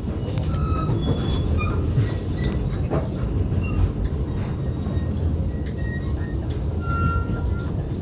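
Kowloon–Guangzhou through train running, heard from inside a passenger coach: a steady low rumble of wheels on track, with a few clicks and brief high wheel squeals.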